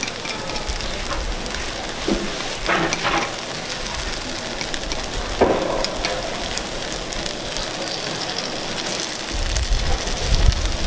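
Takoyaki batter frying in an oiled takoyaki griddle: a steady, even sizzle, with short voices cutting in now and then.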